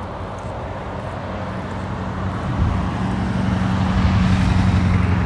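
A pickup truck driving past on the road, its engine hum and tyre noise growing louder over the last few seconds.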